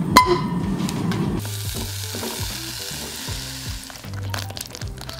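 Diced apples sizzling in butter in a frying pan while being stirred with a wooden spatula. The sizzling hiss comes in about a second and a half in, after some knocks at the start, and eases off near the end.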